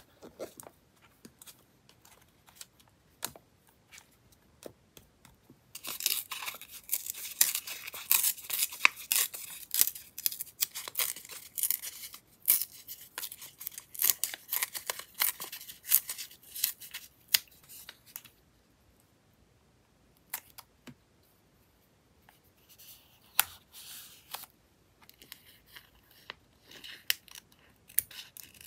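Close-up paper crafting sounds: a few light taps and paper touches, then a long stretch of crisp paper crinkling and tearing between the fingers. After a short pause, small scissors snip through a sticker sheet in quick cuts near the end.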